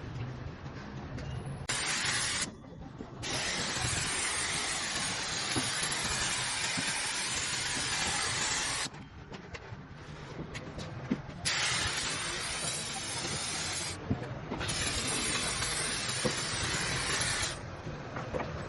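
Compressed-air spray gun hissing in four bursts: a short one, then three long ones of a few seconds each, the longest about five and a half seconds, with brief pauses between.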